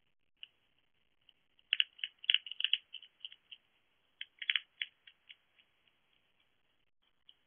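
Hedgehog chewing food at a shallow plastic dish: a run of sharp little clicks, thickest about two seconds in and again about four and a half seconds in, with scattered clicks between.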